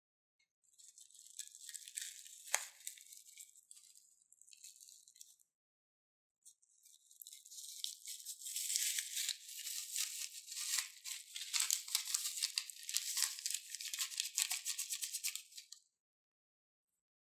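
Slime being squeezed and worked by hand, giving a dense crackling full of tiny clicks, in two stretches with a short pause between them.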